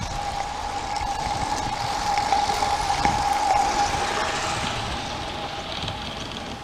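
Live steam model locomotive (a modified Accucraft IDA 2-4-0) running, with a steady hiss and a constant high tone; the hiss swells for a couple of seconds mid-way, then eases.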